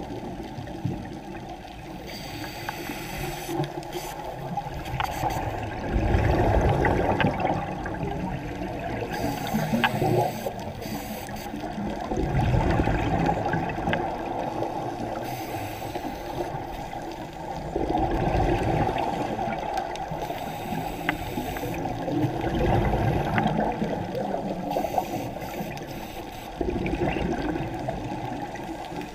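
Scuba regulator breathing heard underwater: a gurgling rush of exhaled bubbles surges every few seconds over a steady muffled water noise, with a few faint ticks between.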